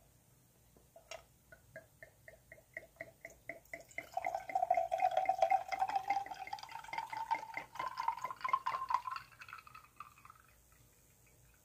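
Red wine poured from a glass bottle into a stemmed wine glass. It starts as quick glugs at about five a second, then becomes a steady pour whose pitch slowly rises as the glass fills, ending in a short trickle about ten seconds in.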